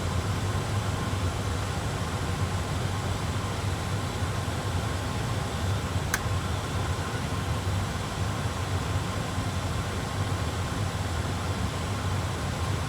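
Steady low rumble and hiss of cockpit noise in an Airbus A320 flight simulator during an approach, with a single faint click about six seconds in.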